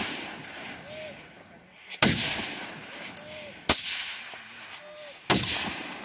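Three shots from scoped precision rifles, about a second and a half apart, each trailing off in echo; the fading tail of a shot fired just before is heard at the start.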